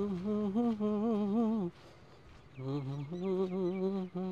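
A person humming a wordless tune in held, wavering notes: one phrase, a break of about a second, then a second phrase.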